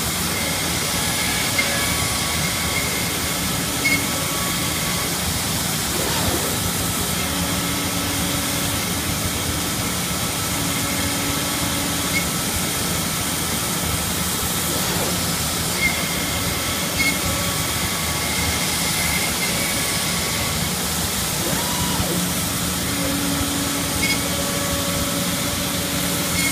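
Komo VR512 Mach 1 SHO CNC router and its automated material handling system running: a steady hiss with faint machine tones that come and go, and a few sharp clicks.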